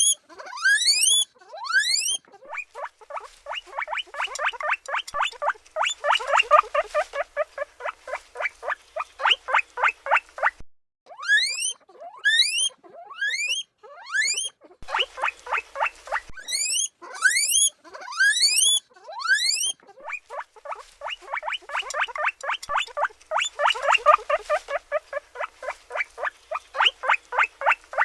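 Guinea pig wheeking: loud rising whistle calls in quick groups, alternating with long runs of short squeaks repeated several times a second.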